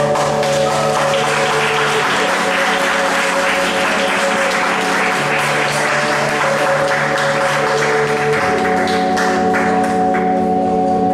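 Audience applauding over zouk music that holds long sustained chords; the clapping dies away near the end.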